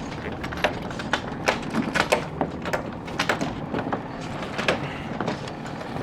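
Irregular sharp snaps and clatter from a sailboat's sails and rigging in gusty wind, a few a second, over a steady rush of wind and water.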